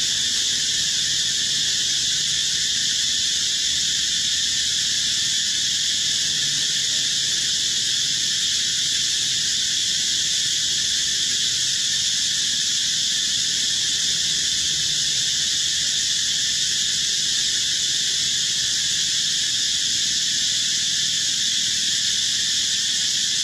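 Dense insect chorus in forest: a constant high-pitched drone that does not change or break.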